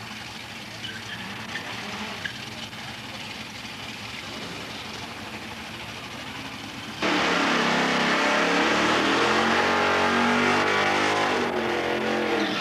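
A drag-racing car's engine running low, then about seven seconds in a loud, high-revving engine that holds for about four seconds and drops away near the end.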